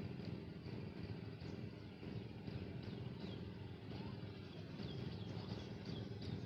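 Outdoor ambience: a steady low rumble, with small birds chirping many times over it from about a second and a half in.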